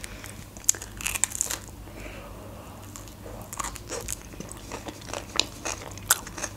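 A person biting into and chewing a sauce-topped sushi roll, with irregular short sharp clicks of the bites and chewing.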